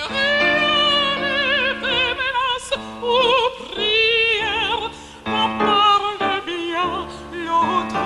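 A woman singing live in an operatic style, long held notes with wide vibrato in phrases broken by short breaths, over held accompaniment notes.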